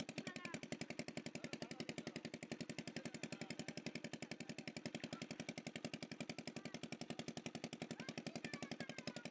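A small engine running at a steady, even chug of about a dozen beats a second.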